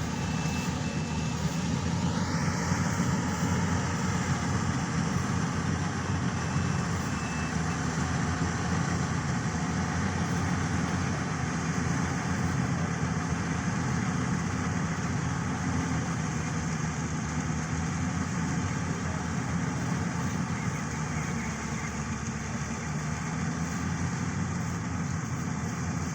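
Yanmar YH700 full-feed combine harvester running steadily, its engine and threshing machinery making a dense, even drone. A short run of beeps at one pitch sounds at the start and again about seven seconds in, and a brief rising whine comes about two seconds in.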